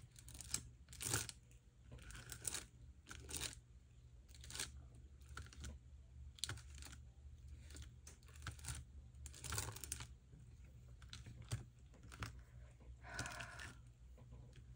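Faint, irregular scrapes and rustles of glitter paste being worked over a plastic stencil laid on vellum, about a dozen short strokes.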